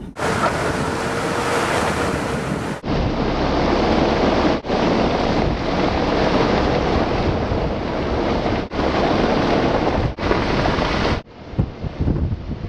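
Strong wind rushing and buffeting the microphone, a steady loud noise broken by several abrupt cuts between short clips.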